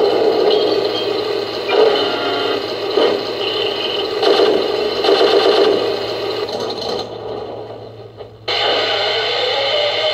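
A 1/16 RC Sherman tank's onboard sound unit playing a simulated tank engine through its small, tinny speaker. The steady engine drone fades down about seven seconds in, then cuts back in suddenly at full level about a second later.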